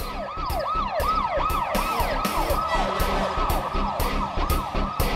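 Electronic emergency-vehicle siren on a fast yelp, its pitch sweeping up and down about three times a second, over a steady beat of regular hits.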